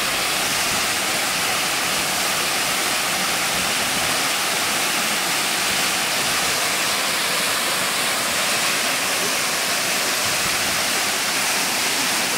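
Waterfall rushing steadily, an even hiss of falling water that never lets up.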